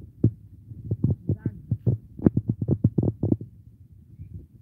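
An irregular run of dull, low thumps, coming several a second and crowding together between about one and three and a half seconds in.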